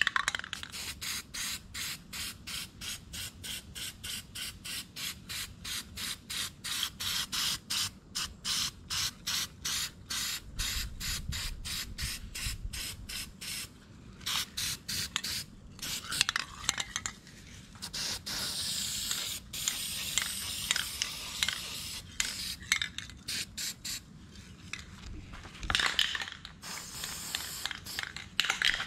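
Aerosol can of Rust-Oleum Rust Reformer spraying a rust-converting primer coat in quick short bursts, about three a second, for the first half, then longer steady hisses, and a few more short bursts near the end.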